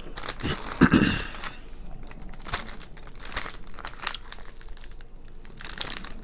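Wrappers of takeout desserts (a cookie and a brownie) crinkling and rustling irregularly as they are handled and opened, loudest about a second in.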